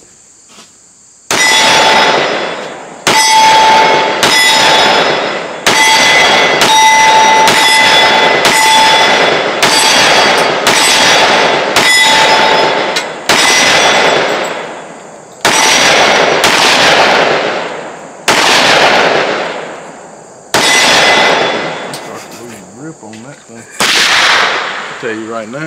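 Smith & Wesson M&P 10mm semi-automatic pistol firing a string of more than a dozen loud shots. They come about one a second at first, then with longer pauses toward the end. A metallic ringing tone hangs behind the shots in the first half.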